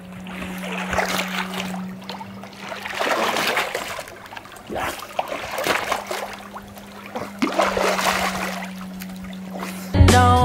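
Swimmer doing front crawl in a swim spa, the arm strokes splashing in swells every second or two over a steady low hum from the spa's current jets. Music comes in right at the end.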